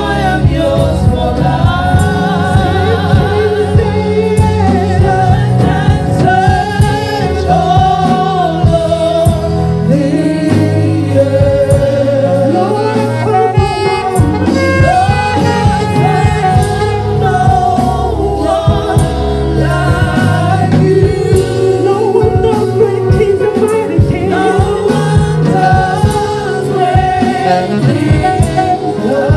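Live gospel praise-and-worship music: a group of women singing together into microphones over a band accompaniment.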